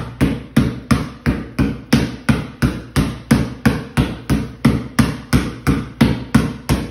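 A basketball dribbled hard and fast on a concrete floor in a V dribble, front-to-back and side-to-side, giving a steady run of sharp bounces at about three a second.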